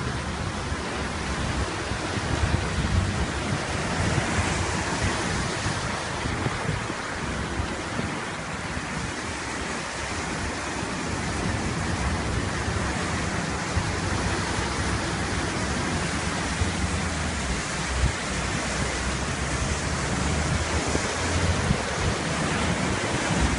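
Storm surf crashing over a sea wall in heavy rain and strong wind: a steady, loud rushing noise, with uneven low thumps of wind buffeting the microphone.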